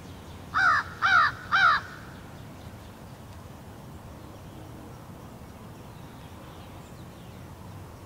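A crow cawing three times in quick succession, about half a second apart, each call dropping in pitch.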